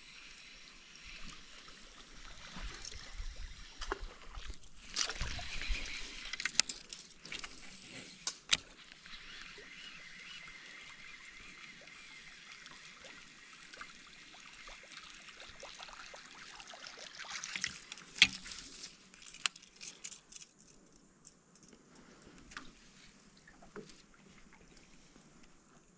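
Water sloshing and trickling around a paddled boat, with scattered knocks and clicks of paddle against hull. The water sound is strongest in the first half and quieter after about twenty seconds.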